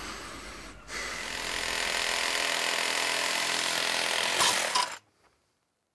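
Reciprocating saw with a fresh blade cutting through a rusted-in rear suspension arm bolt. It starts about a second in, runs steadily for about four seconds, then stops suddenly.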